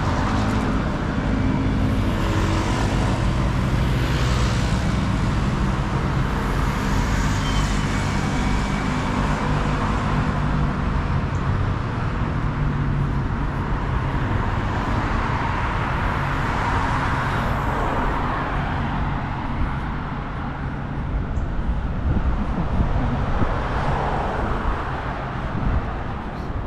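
Street traffic: a vehicle's engine running nearby through the first half, with cars passing by later on.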